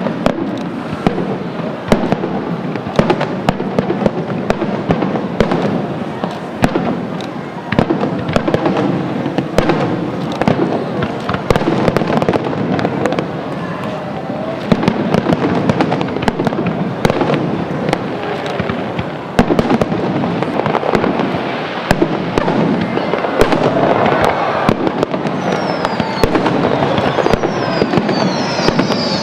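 Aerial fireworks going off in quick succession: a dense barrage of bangs and crackling bursts, with several high whistles near the end.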